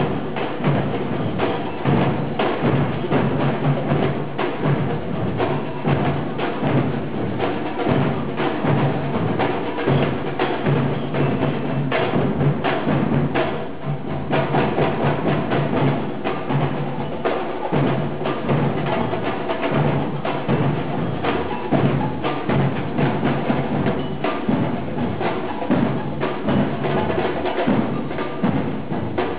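Percussion-heavy music with drums and sharp wood-block-like strikes in a steady rhythm over sustained pitched tones.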